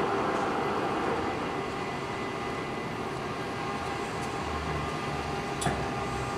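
Poreba heavy engine lathe running with a steady mechanical hum, easing slightly over the first couple of seconds. A single sharp knock comes near the end.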